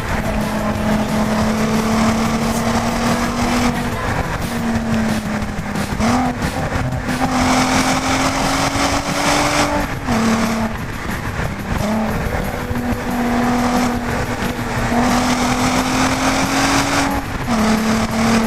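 VW Golf R32's 3.2-litre VR6 engine through its stock exhaust, driving on the road. The engine note climbs gradually and drops back at each gear change, about five times, over steady tyre and road noise.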